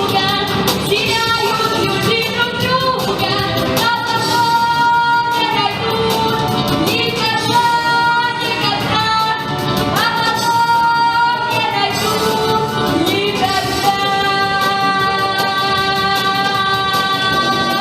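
A young girl singing over a backing track with a steady beat. She holds long notes with vibrato and sustains the last one through the final few seconds.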